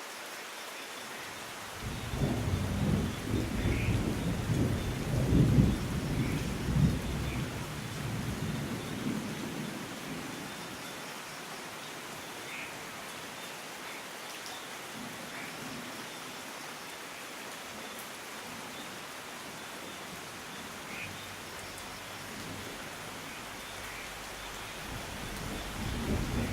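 Steady rain hiss with a roll of thunder that rumbles in about two seconds in, is loudest a few seconds later and dies away after about ten seconds. A second rumble begins building near the end, with scattered single drops over the rain.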